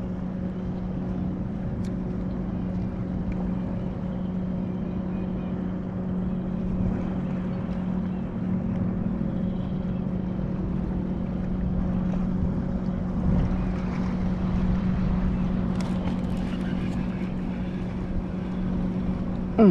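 Minn Kota Terrova electric trolling motor running with a steady, even hum, over a continuous wash of water and wind noise.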